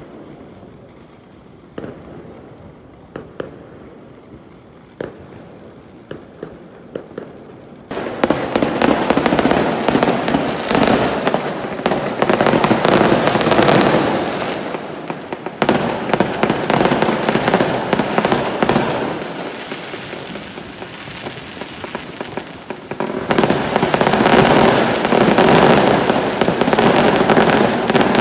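Fireworks going off. A few separate bangs come in the first several seconds, then from about eight seconds in a dense, continuous barrage of crackling bursts sets in, easing off and swelling again near the end.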